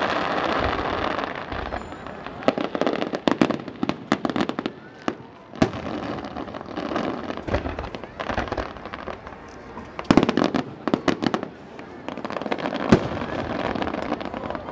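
Aerial fireworks bursting: many sharp cracks and pops, bunched into thick clusters of crackling about a third of the way in and again about two-thirds in, with one sharp bang near the end.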